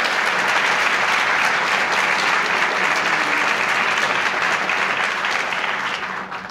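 Audience applauding: a large crowd clapping steadily, dying away near the end.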